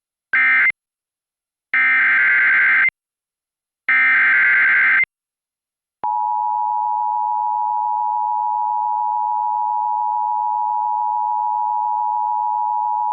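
NOAA Weather Radio Emergency Alert System tones: three bursts of screeching SAME digital header data, the first short and the next two about a second each, then the steady single-pitch weather radio warning alarm tone starting about six seconds in, announcing a new warning.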